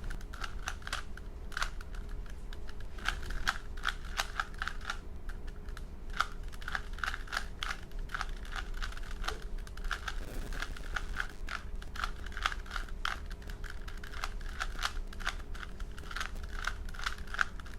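Rubik's Cube being turned rapidly by hand while being solved: quick, irregular clicks of its plastic layers, several a second, with a faint steady hum beneath.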